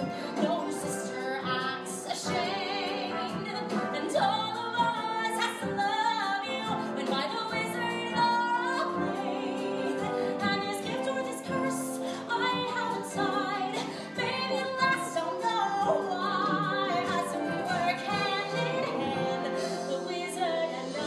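A woman singing a musical-theatre solo with orchestral accompaniment.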